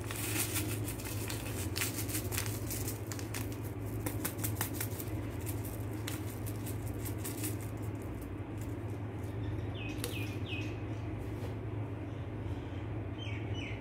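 Light clicking and rustling from a seasoning packet and spoon being handled over a plastic bowl of raw peanuts as the powder is tipped in. The clicking is dense for the first seven or eight seconds, then thins out, over a steady low hum.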